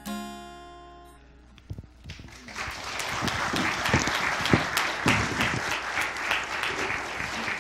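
A last chord strummed on an acoustic guitar rings and fades away over about a second and a half. About two and a half seconds in, the congregation starts clapping, and the applause carries on.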